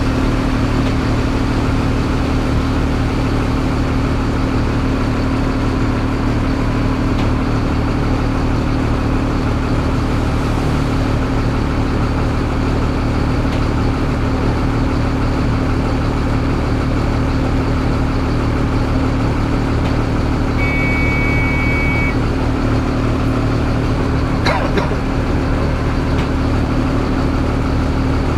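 A Mercedes-Benz city bus's diesel engine idling steadily, heard from the driver's seat inside the cab. A short electronic beep sounds about two-thirds of the way through.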